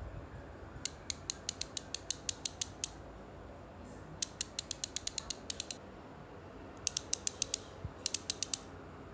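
Ratchet pawls of a White Industries Tracker rear cassette hub clicking as the hub freewheels. There are four runs of sharp, evenly spaced clicks, about six a second: two longer runs, then two short ones near the end.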